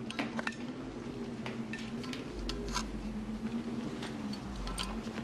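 Small metal and glass items being handled: scattered light clinks and taps over a low steady hum, with a deep rumble that comes and goes.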